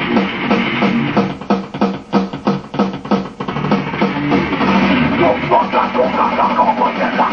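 Amateur rock jam: an electric guitar plays with a drum kit. The steady drum beat breaks up about halfway through.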